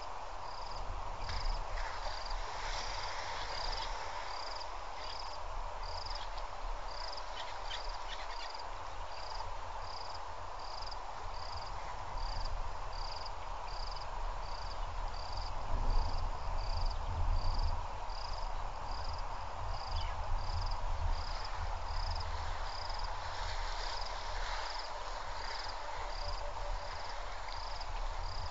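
An insect chirping steadily, a short high chirp repeated about twice a second, over a constant low rumble.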